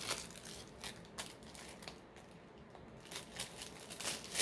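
Faint, scattered crinkling and clicking of a plastic-wrapped diamond painting kit being handled and picked up, with a short lull in the middle.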